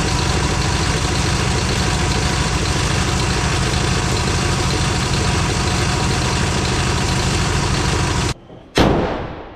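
Squarebody pickup's engine idling steadily, heard close up from the open engine bay. It cuts off abruptly near the end and is followed by a single sharp bang that dies away.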